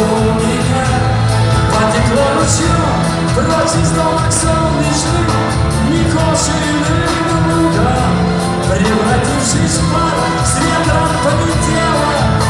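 Live rock band playing loudly, with sustained instrument lines and steady cymbal strikes.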